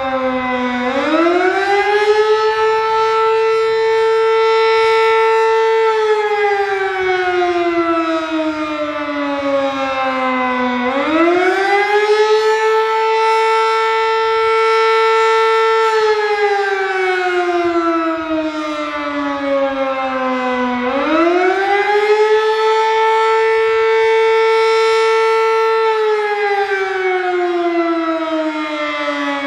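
Sterling M-10 electromechanical warning siren sounding the attack signal: its pitch winds up quickly, holds high for a few seconds, then slowly falls, repeating about every ten seconds, three wails in all.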